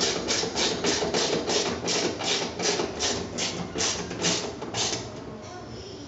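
Hand driver turning a T20 Torx screw into the plastic mount of a washer's water inlet valve, giving a regular run of short clicks, about three a second, that stops about five seconds in.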